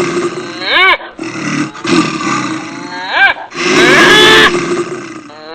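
Several wild animals calling at once in a dense, loud din. Short pitched calls rise and fall about a second in and again past three seconds.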